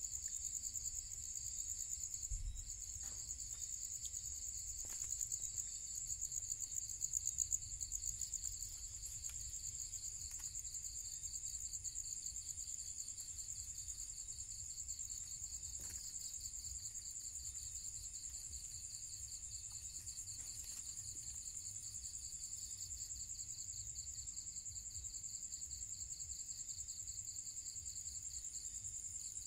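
A chorus of night insects trilling steadily and high-pitched, with a few faint clicks now and then.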